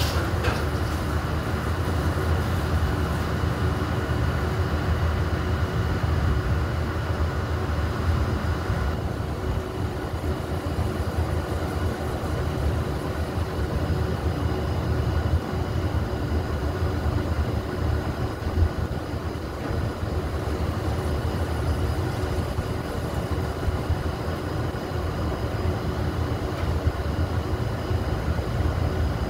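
Steady low rumble with a constant machine-like hum. A higher whine drops out about nine seconds in.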